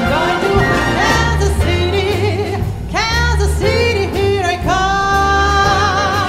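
Female vocal ensemble singing over a symphony orchestra with a steady bass line. A long note with vibrato is held through the last part.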